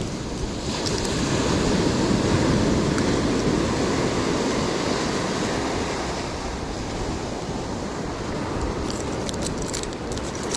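Ocean surf washing up a sandy beach: a steady rush of breaking waves that swells about two seconds in and then eases.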